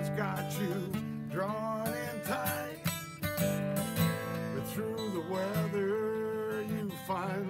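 Acoustic guitar strummed as accompaniment, with a wordless sung melody gliding and wavering above it.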